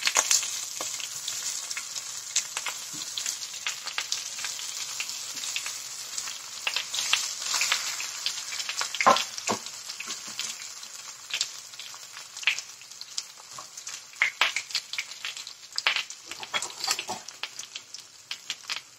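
Marinated raw banana slices frying in hot oil in a nonstick pan, sizzling steadily with frequent crackling pops. At first the slices are being pushed off a steel plate into the oil.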